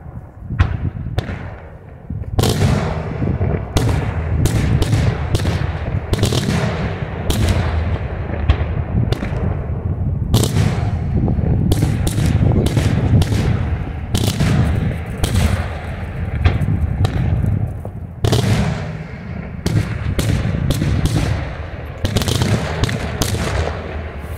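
Daytime aerial fireworks display: a rapid, nearly continuous barrage of shell bangs and reports over a steady low rumble. It starts with a few separate bangs, thickens about two seconds in, and eases briefly with a short lull near the end.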